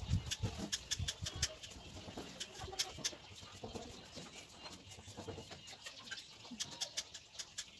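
Faint, irregular clicks and scrapes of hands working loose soil around newly planted saplings, with a bird calling in the background.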